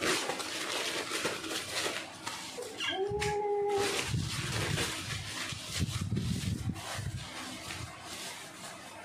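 Towel rubbing over a wet Siamese cat's fur as it is dried, with one drawn-out, steady meow a little over three seconds in.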